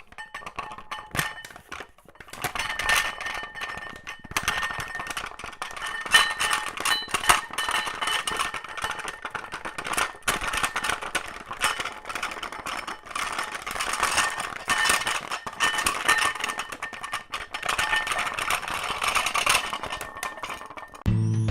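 Things rattling and clinking in a room during earthquake shaking: a dense, irregular stream of small knocks and chinks, with a faint thin high tone coming and going.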